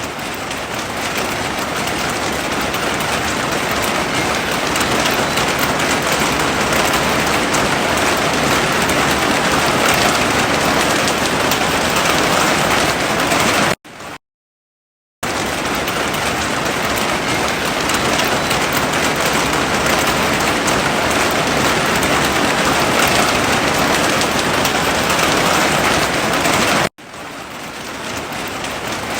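Heavy rain falling in a steady, dense hiss. About halfway through it cuts out to complete silence for a second and a half before resuming, and near the end it drops out suddenly and swells back in.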